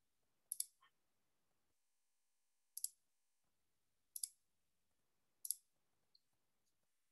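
Four short, sharp computer mouse clicks, spaced about one and a half seconds apart, over near silence.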